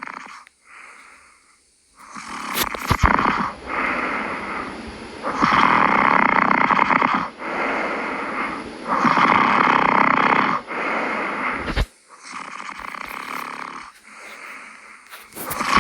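Loud snoring in a steady run of breaths, each lasting about one to two seconds. It sets in about two seconds in, after a short quieter patch.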